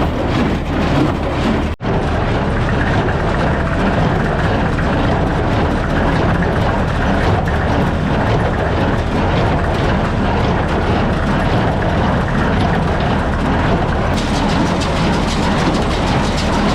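Massey Ferguson 240 tractor's diesel engine running steadily while pulling an old New Holland square baler, with the baler's mechanism clattering rhythmically as it works. The sound cuts out for an instant about two seconds in.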